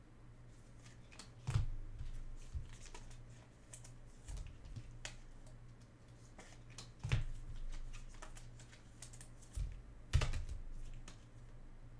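Irregular clicking and tapping of typing on a computer keyboard, with a few heavier knocks on the desk about a second and a half in, around seven seconds in and around ten seconds in.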